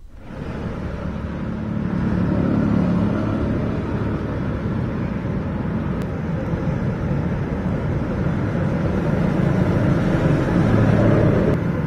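Steady outdoor rumble and hiss of a flooded street in heavy rain, swelling in over the first two seconds and then holding.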